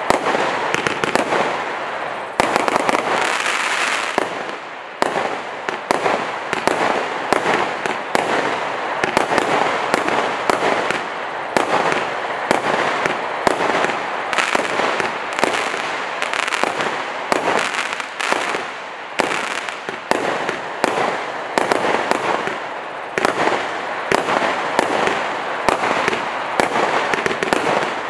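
A 216-shot consumer fireworks compound box (Monkey Madness) firing a dense, continuous barrage. Shots launch and burst in quick succession without a pause, mixed with the sputter of crackling stars.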